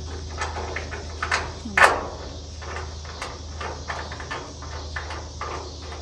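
Scattered knocks and clanks in a metal livestock trailer as a miniature horse shifts about inside, the loudest about two seconds in, over a steady low hum.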